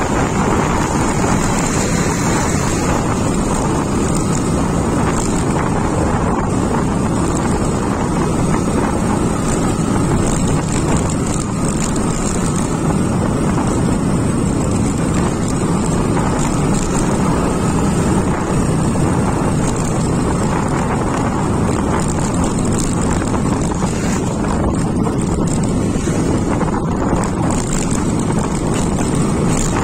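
Motorcycle engine running steadily while under way, with wind noise on the microphone.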